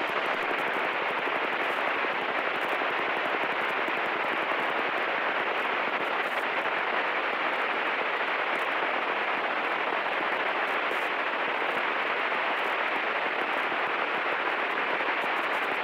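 Steady, even hiss of light-aircraft cabin noise heard through the headset intercom, without a distinct engine note, as the 1938 Fairchild 24 rolls along the runway after touchdown.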